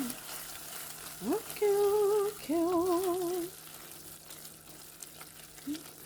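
A woman hums two short wavering phrases in the first half, over the steady sizzle of efo riro stew frying in a pot on the stove. Faint clicks of stirring follow in the second half.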